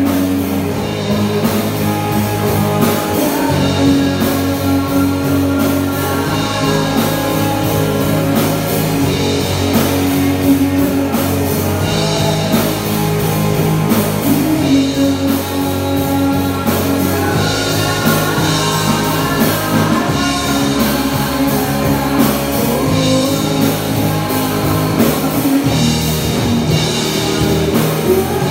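Rock band playing live: electric guitar, electric bass and drum kit.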